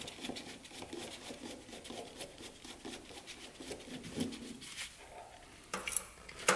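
Screwdriver turning a small spring-loaded screw out of an aluminium ATV carburetor body, with faint scraping, rubbing of gloved hands and small metal clicks, and a few sharper clicks near the end.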